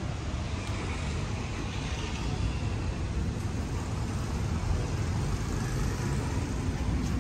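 Road traffic noise: a steady low rumble of passing vehicles that grows slightly louder toward the end.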